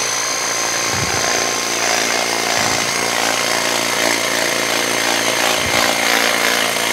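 Fixnow 500E cordless pressure washer running, its battery-powered pump whirring steadily under the hiss of the water jet hitting a fabric seat cushion.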